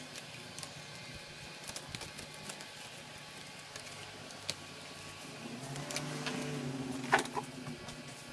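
Light, scattered clicks and taps of small laptop parts and tools being handled, with one sharper click about seven seconds in. A low hum runs underneath from about five and a half to seven seconds in.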